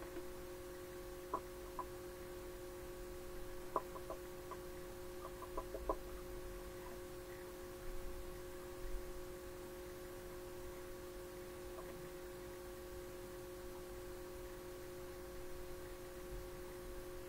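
Faint CCTV microphone audio from a roof void: a steady electronic hum of several held tones, with a scattered run of light, sharp clicks or ticks, most of them between about one and six seconds in.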